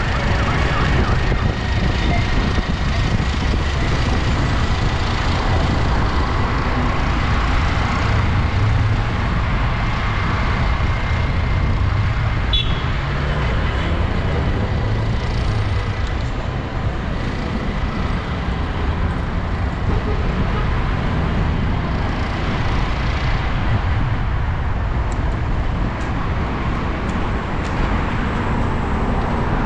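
Continuous city street traffic from cars and buses on a busy avenue, heard from a moving camera, with a steady low rumble of wind on the microphone.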